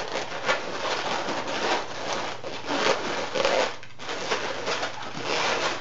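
Inflated latex modelling balloons rubbing and scraping against each other in an irregular run of rustling strokes as a twisted loop is worked into place inside the sculpture.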